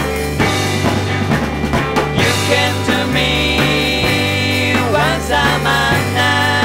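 Rock band recording playing: electric guitars, bass guitar and drum kit in a steady beat, with sustained high notes that slide in pitch about five seconds in.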